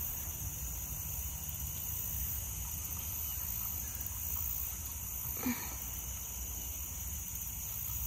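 Outdoor ambience: a steady high insect chorus over a low, uneven rumble, with one brief short sound about five and a half seconds in.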